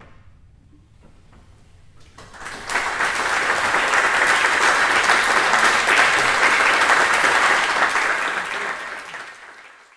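Audience applauding: the clapping breaks out about two seconds in after a hush, holds steady, then fades away near the end.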